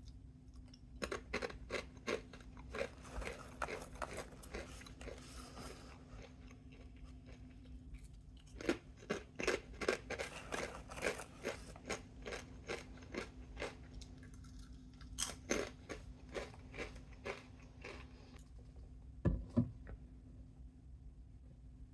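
A person chewing a crunchy snack close to the microphone: quick crunches about three a second, in three bouts with short pauses between them, and a single louder knock near the end.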